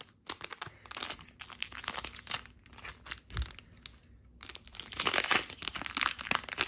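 The foil wrapper of a Japanese Pokémon card booster pack crinkling in the hands in bursts, then more densely from about four and a half seconds in as it is torn open.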